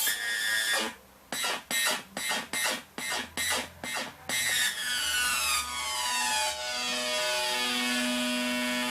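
Electronic sound-effects synthesizer producing synthetic tones: a steady tone, then a run of short beeps about three a second, then a long sweeping tone falling in pitch over a steady low note.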